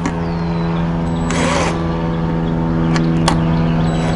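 Cordless drill whirring in short bursts as it backs out a Phillips screw, once about a second in and again at the very end, with a couple of sharp clicks in between. A steady low mechanical hum runs underneath.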